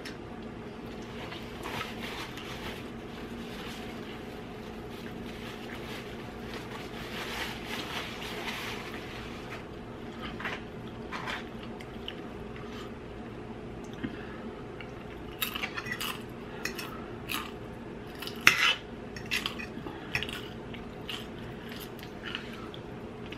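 Fork clinking and scraping on a plate in a quick run of sharp clicks during the last third, after softer eating sounds, over a steady low hum.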